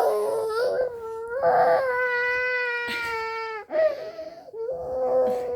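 Young child crying in long, drawn-out wails at a steady pitch, breaking off a little under four seconds in before wailing again.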